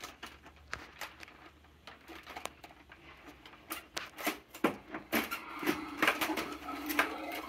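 Plastic clicks and knocks from a large toy dinosaur being handled and its parts moved, sparse at first and coming thick and fast in the second half.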